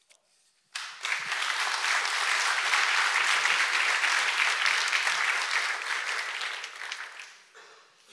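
Audience applause at the end of a talk, starting suddenly about a second in and dying away over the last second or two.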